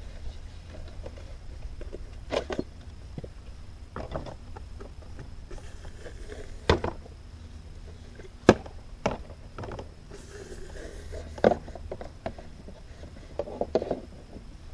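Plastic hydroponic stacker pots knocking and clacking against each other and the pole as they are slid down a pipe and stacked into a tower, in several irregular sharp knocks. A steady low rumble runs underneath.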